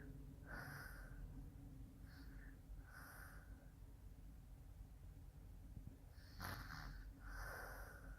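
Quiet snoring: five airy, noisy breaths at irregular intervals, with a pause of a couple of seconds midway.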